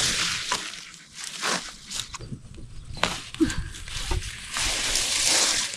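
Leafy sweet potato vines rustling and snapping as they are pulled up by hand from the soil, an irregular rustle that grows denser near the end.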